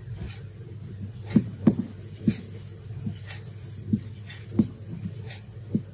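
Felt-tip marker writing on a whiteboard: a string of short squeaks and taps at irregular intervals as the words are written, over a steady low hum.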